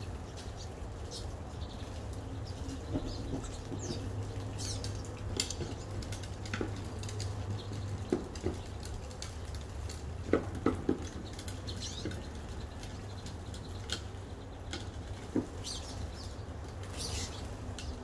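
Small birds bathing in a rain puddle: scattered short high chirps and light splashes, with a few sharper clicks, over a steady low hum.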